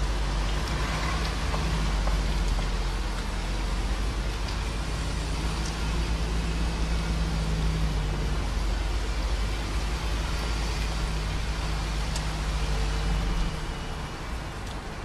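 Steady low road rumble of a moving vehicle, with an engine-like hum that fades in and out. The rumble drops noticeably near the end.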